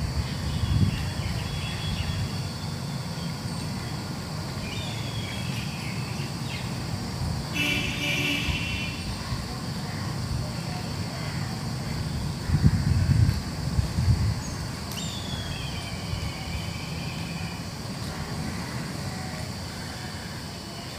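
Steady distant street traffic, with a vehicle horn tooting briefly about eight seconds in and a louder rumble of passing traffic around thirteen seconds.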